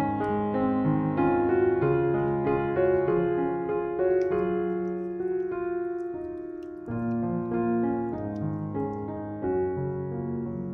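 Background piano music: a slow melody of single notes over held low chords.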